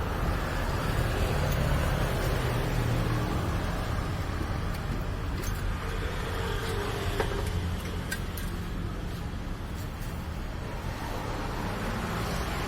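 Car engine running steadily with a low hum, with a few light clicks in the middle.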